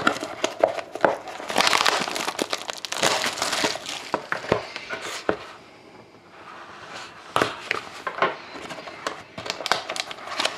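Plastic wrapping crinkling and tearing as a sealed trading card box is unwrapped by hand: irregular crackling with sharp snaps, easing off for a moment about halfway through.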